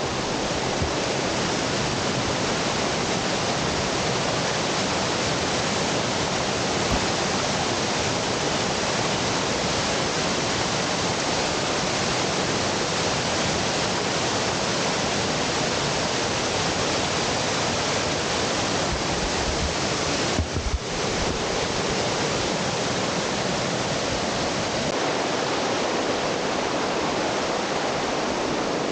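Waterfall pouring and splashing over bare rock, heard from right inside the falling water as a loud, steady rush. About two-thirds of the way through there is a brief knock and a short dip in the sound.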